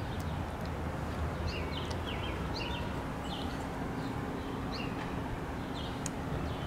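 Small birds chirping repeatedly, short high chirps scattered throughout, over a steady low outdoor rumble of street ambience.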